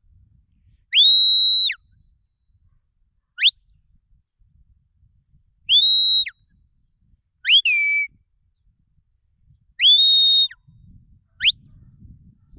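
Shepherd's whistle commands to a working sheepdog: six piercing whistle signals, three long held notes that drop sharply at the end, two short upward chirps, and one two-part call that rises and then falls.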